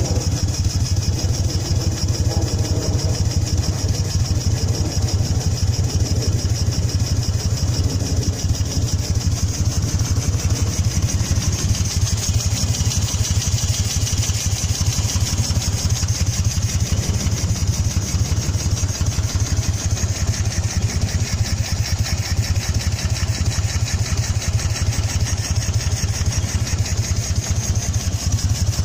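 1983 Moto Guzzi SP 1000's air-cooled transverse 90° V-twin idling steadily.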